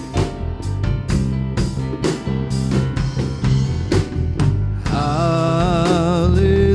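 Live worship band music: a steady drum beat over sustained bass and chords, with a singer's voice coming in with vibrato about five seconds in.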